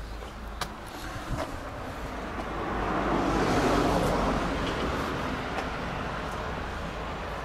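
A motor vehicle passing on a nearby road: a rushing tyre-and-engine noise that swells to a peak about halfway through and then eases off. A few footsteps on concrete steps click in the first seconds.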